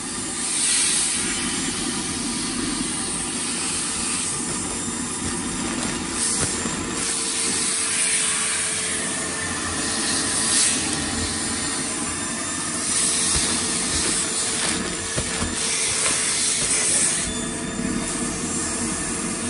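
A vacuum cleaner runs with its hose on a vacuum-storage bag, sucking the air out of stuffed toys packed inside: a steady hiss of air over a low motor hum, with louder stretches of high hiss several times as the bag draws down.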